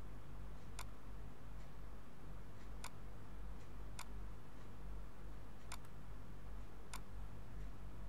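Computer mouse clicking: about five sharp single clicks, a second or more apart, with a few fainter ones between. Under them runs a steady low electrical hum.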